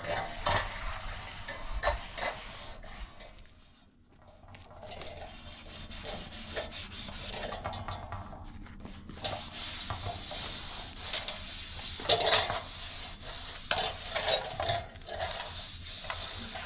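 Irregular rubbing and scraping with short sharp knocks. It dips almost to quiet about four seconds in, then picks up again with a cluster of louder scrapes near the end.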